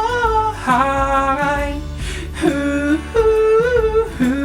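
A male singer singing a wordless "la la" refrain in long held notes that slide between pitches, several phrases in a row.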